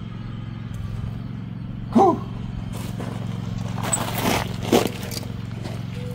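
A steady low mechanical hum, with a short gliding pitched call about two seconds in, a brief hiss just after four seconds and another short call soon after.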